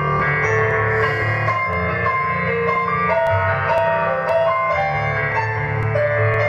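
Instrumental background music: a melody of held notes changing about every half second over sustained low notes.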